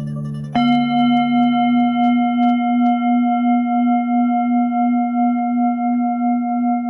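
A single held bell-like ringing tone, with several clear overtones, starts suddenly about half a second in. It sustains steadily with a slow pulsing wobble, as used in meditation music.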